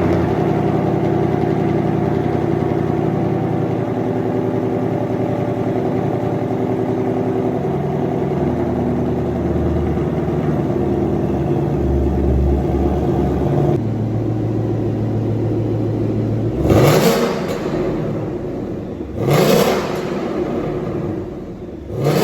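A Ford Mustang Mach 1's 5.0 V8 idles steadily through an exhaust fitted with an X-pipe and 2.5-inch stainless downpipes, keeping the original mufflers and tips. In the last six seconds it is revved three times, each a short rise in pitch that falls back to idle.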